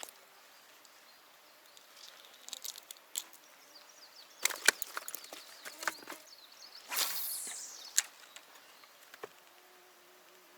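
Clicks and knocks of spinning tackle being handled, then a swish about seven seconds in whose hiss falls in pitch, typical of a cast with line paying off the reel, and a couple of clicks after it. Near the end a flying insect buzzes steadily.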